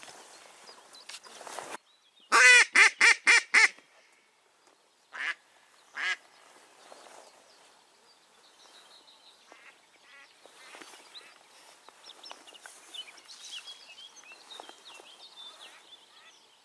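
Hen duck quacking, the live decoy calling to draw in drakes: a quick loud run of six quacks about two seconds in, then two single quacks. Faint small-bird chirps follow.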